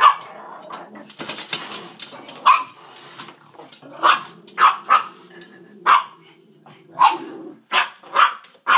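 Small dog barking repeatedly in play, about ten sharp barks at uneven intervals, with scuffling between them.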